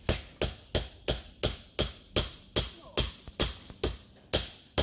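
Hammer blows in a quick, steady rhythm, about two and a half strikes a second.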